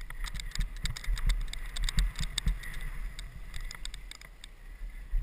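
Mountain bike rattling and clattering as it is ridden fast down a rough dirt trail: a dense run of sharp clicks and knocks from the chain and frame, with low thumps over bumps. It thins out and quietens over the last couple of seconds.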